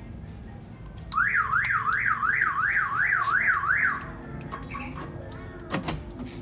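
Car alarm siren of a newly fitted remote alarm system sounding for about three seconds, a quick up-and-down wail of roughly two cycles a second, followed by a couple of sharp clicks near the end.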